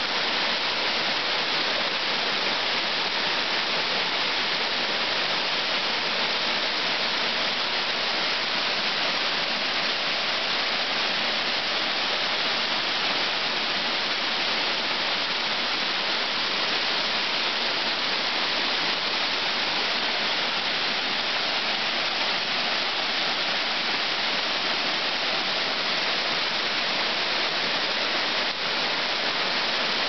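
Small waterfall pouring over rock ledges into a shallow pool: a steady, unbroken rush of falling water, with the most energy in the hiss and splash rather than the low rumble.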